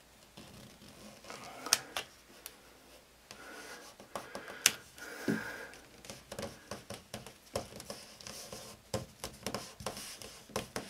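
Hand-applied high-gloss sticker being peeled, positioned and rubbed flat onto a board with the fingers: scraping and rubbing with sharp clicks and ticks, two louder clicks in the first half and busier rubbing in the second.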